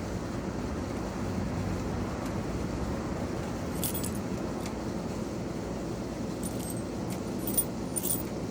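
A few light metallic jingles and clicks, once about four seconds in and several more near the end, over a steady low rumble.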